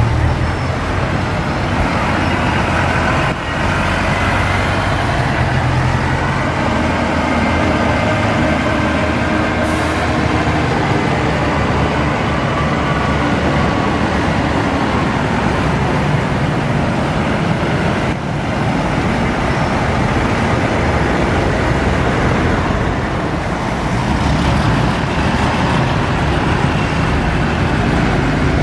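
Farm tractors' diesel engines running as the tractors drive past one after another, including a John Deere and a Ford 7840. The engine sound is loud and steady.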